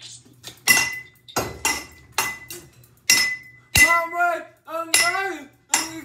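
A long pole repeatedly striking a spinning ceiling fan's blades and metal light housing: about eight sharp metallic clanks and clinks, each with a brief ringing.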